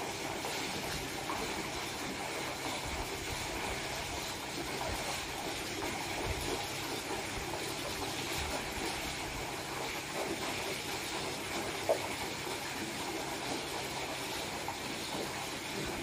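Steady rushing hiss of water running into a swimming pool, with one faint short sound about twelve seconds in.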